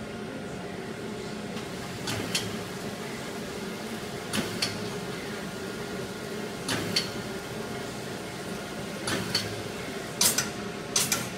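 Kallfass Universa 400 automatic side-sealing shrink wrapping machine running with a steady hum, its mechanism giving a pair of sharp clicks about every two and a half seconds as it wraps packs in film.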